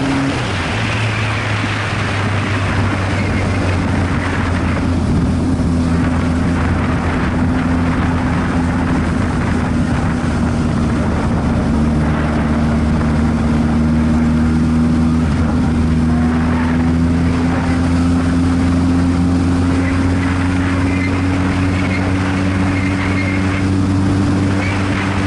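Motorcycle engine running steadily under way, over wind and road noise. Its note shifts shortly after the start and again about halfway, then rises slowly as the bike speeds up.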